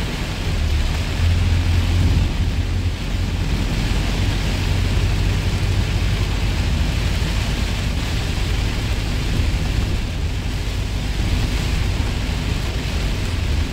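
Heavy rain falling hard on a moving truck's windscreen and cab, over a steady low rumble from the engine and the tyres on the wet road.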